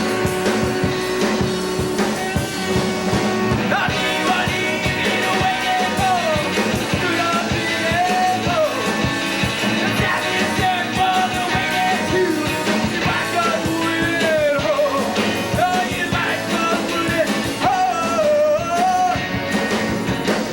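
A rock band playing live, with drums keeping a steady beat under electric guitar; from about four seconds in a lead melody comes in, bending and wavering in pitch.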